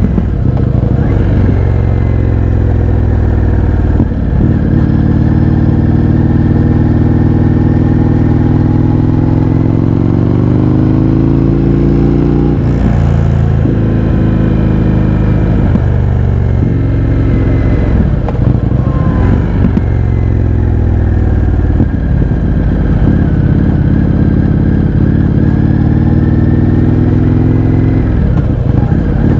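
Indian FTR 1200's V-twin engine through an Akrapovič exhaust with the baffles removed, running loud as the motorcycle is ridden. The pitch climbs steadily and then drops sharply several times, as with acceleration through a series of gear shifts.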